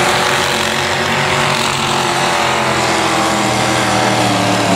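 Tractor-pulling engine running steadily at a fairly constant pitch, which sags slightly and recovers in the middle.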